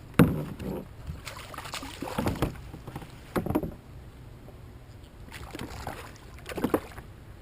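A handful of irregular knocks and splashes around a fishing kayak, spaced a second or more apart, while a hooked speckled trout is played to the boat.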